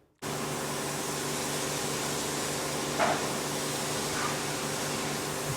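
A machine running steadily, a constant hum with a hiss over it, starting suddenly just after the start. A brief short sound about three seconds in.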